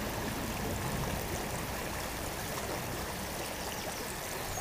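River water flowing, a steady, even rush.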